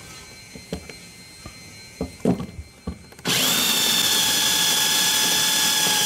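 Cordless 20-volt drill/driver running steadily for about three seconds from a little past halfway, driving in a screw. Before it come a few light clicks and taps of handling.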